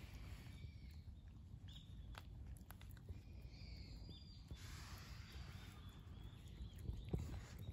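Two cats lapping and chewing food from a bowl, heard as faint, scattered soft clicks that grow more frequent near the end. A few bird chirps and a low outdoor rumble sit behind them.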